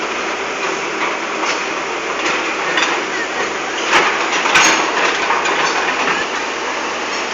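Roadworks: a steady din of work noise with several sharp knocks and clanks, the loudest about four seconds in and again just after.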